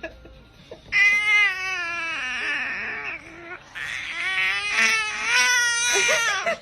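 A baby giving two long, drawn-out happy 'aaah' vocalizations, each two to three seconds long with a wavering pitch, the second starting about a second after the first ends.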